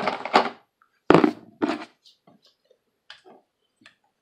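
Hard plastic toy parts being handled: clatter at the start, a sharp thunk about a second in and a smaller one just after, then light scattered clicks as the black cannon is brought to the Transformers Siege Megatron figure.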